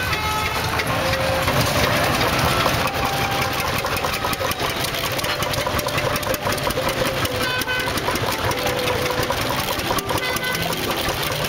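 Single-cylinder engine of a vintage tractor running steadily with a rapid, even knocking beat as the tractor is driven along.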